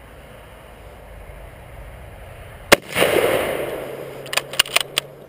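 A single shot from a Mosin-Nagant bolt-action rifle (7.62×54R) about three seconds in, its report rolling on and fading over about a second. Then a quick run of sharp metallic clacks as the bolt is worked to eject the spent case and chamber the next round.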